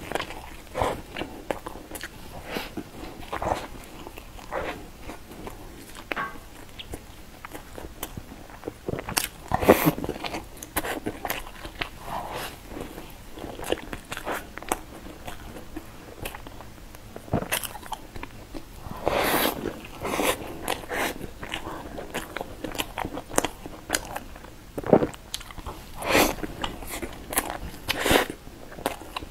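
A person biting and chewing a flaky, layered pastry bread, with irregular crunches and crackles from the crisp crust and chewing sounds between bites. A few bites are louder, about ten seconds in and again near twenty seconds.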